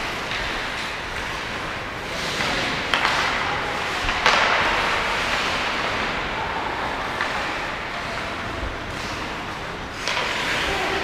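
Ice hockey skate blades scraping and carving on the ice, with a few sharp knocks of sticks and puck. The loudest knock comes about four seconds in.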